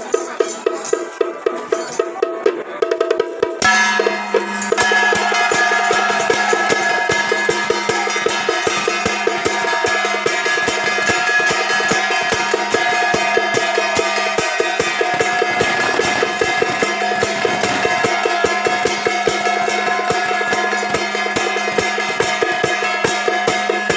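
Taiwanese temple procession music: percussion beating a fast, even rhythm, joined about four seconds in by sustained held tones, after which the music is louder and fuller.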